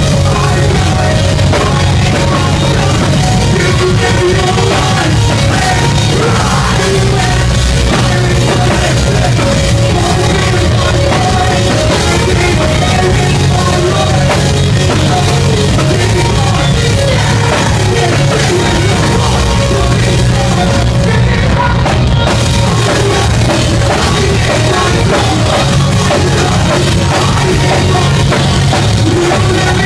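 Live rock band playing loud: drum kit, bass and guitars, with a singer's vocals through the PA.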